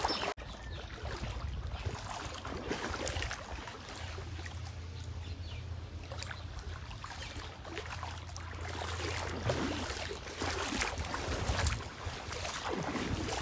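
Floodwater sloshing and splashing irregularly as someone wades through it, with a low steady rumble underneath from about four to ten seconds in.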